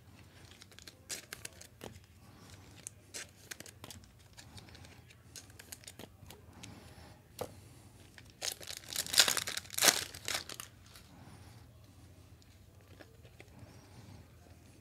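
A trading card pack's wrapper being torn open and crinkled, loudest in a couple of quick rips about two-thirds of the way through, with light clicks and rustles of cards being handled before that.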